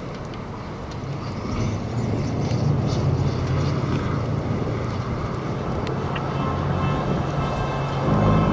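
Wind blowing hard across the microphone: a steady, low noise with a few faint clicks.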